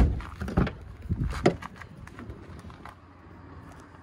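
A sharp knock, then a few dull thumps and clicks over about a second and a half, from the SUV's rear door being opened, before it goes quiet.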